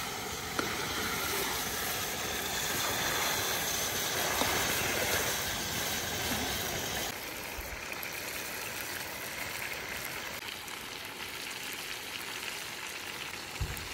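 Chicken karahi sizzling in hot oil in the wok, a steady hiss that becomes quieter and duller about seven seconds in. A single low knock near the end.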